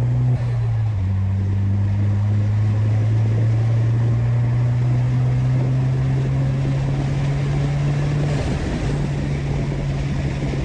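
Stage 2 tuned Peugeot 208 GT's 1.6 turbocharged four-cylinder engine pulling under hard acceleration, its note rising steadily. The note dips briefly about half a second in, and about eight seconds in it breaks off for a moment with a short hiss before pulling again.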